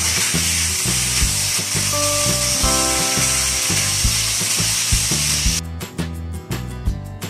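Chicken pieces sizzling in a hot pan as they are stir-fried with a spatula, a steady frying hiss over background music with a steady beat. The sizzle cuts off suddenly about five and a half seconds in, leaving only the music.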